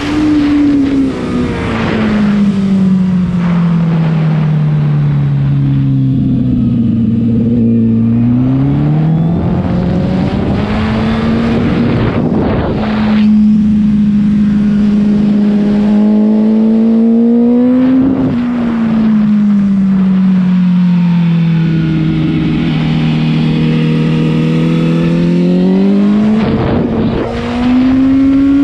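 Honda CBR1000RR superbike's inline-four engine through a Two Brothers exhaust at racing speed on track, with heavy wind rush on the microphone. The engine note falls slowly twice as the bike comes off the throttle, and each time climbs back as it accelerates.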